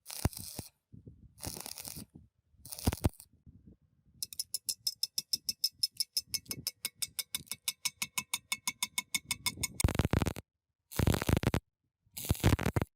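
Hand tools working on metal during a refrigerator compressor repair: a few short scraping strokes, then a rapid, even clicking with a metallic ring, about seven clicks a second for around five seconds, then more short scraping strokes.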